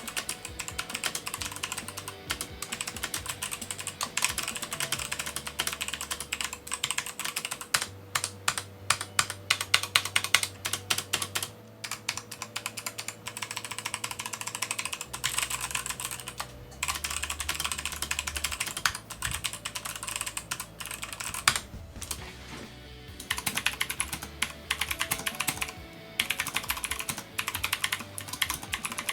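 Fast typing on a mechanical keyboard with Kailh White Box switches: dense runs of clicky keystrokes broken by short pauses, over faint background music.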